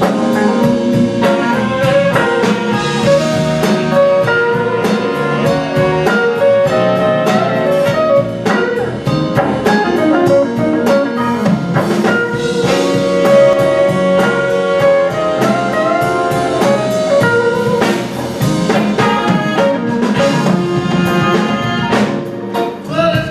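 Blues band music: a drum kit keeping the beat under electric guitar and other instruments, playing steadily.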